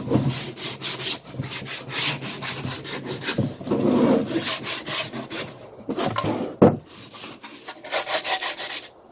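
Sandpaper rubbed back and forth over the edges and corners of a small wooden box, rounding off the sharp corners in quick repeated strokes. One sharp knock comes about two-thirds of the way through, and the rubbing stops just before the end.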